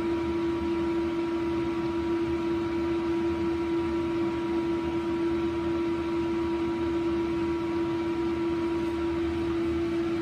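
Steady electric machine hum with one strong, even tone and fainter higher tones, unchanging throughout.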